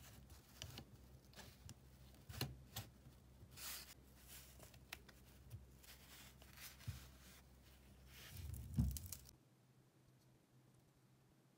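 Faint handling noise of a small drill DC motor and hand tools on a workbench: scattered clicks, scrapes and rustles, with a dull knock just before nine seconds in.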